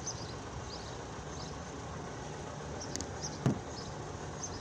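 Railroad grade crossing warning bells ringing faintly over a steady street rumble, with one sharp thump about three and a half seconds in.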